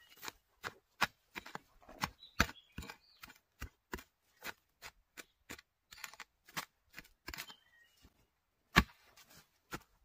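A narrow-bladed digging hoe chops into loose, earthy soil, giving an irregular run of sharp strikes and thuds about two a second, with dirt scraping between them and one harder strike near the end. This is the hoe digging out a winter bamboo shoot.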